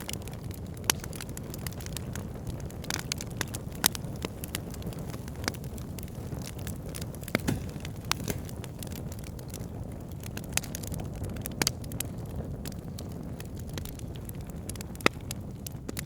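Wood fire burning in a fireplace: a steady low rumble of flames with frequent irregular crackles and several sharper, louder pops.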